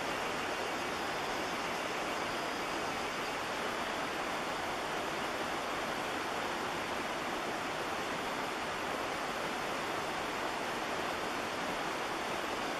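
A steady, even hiss, like rushing water, with a faint high whine. No distinct knocks or animal calls stand out.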